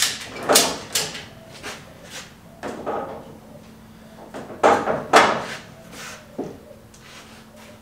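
Irregular knocks and clunks of steel roll-cage tubing being shifted and fitted into place inside a pickup truck's cab, with two loud ones about halfway through.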